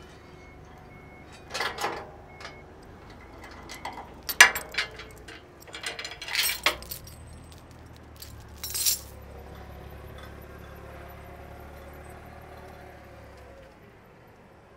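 A steel lifting chain rattles and clinks in several short bursts as it is unhooked from forklift forks. A low engine hum sets in near the middle and stops shortly before the end.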